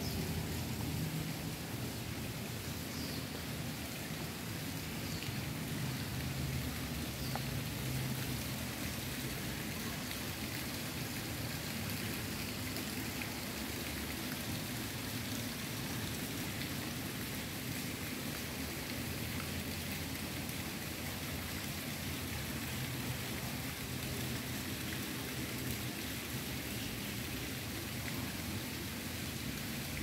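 Steady forest ambience: an even hiss with a low rumble underneath, and a couple of faint short high chirps a few seconds in.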